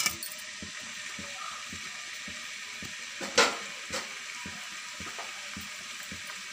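Turmeric-coated prawns sizzling in hot oil in a frying pan: a steady hiss with small crackling pops. There is a sharp click as they land, and two louder clicks, a little past three seconds in and just before four.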